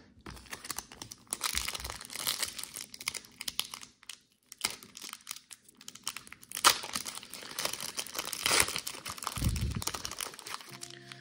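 Foil Crown Zenith booster pack wrapper crinkling and being torn open by hand, in several uneven stretches of crackly rustling with a short pause between them. A dull low bump comes near the end.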